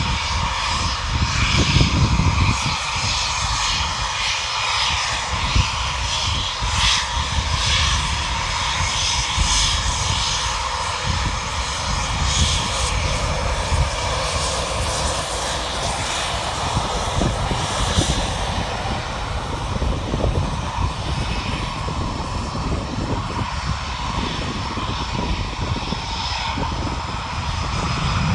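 Eurofighter Typhoon's twin EJ200 jet engines running, a steady loud roar with a deep rumble and a held tone near the top of the roar.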